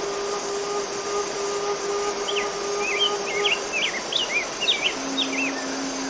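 Forest stream rushing over rocks in a steady wash, with a bird singing a quick run of short chirps through the middle. Behind it a bamboo suling flute holds long low notes: one ends past the halfway point, and a lower one begins near the end.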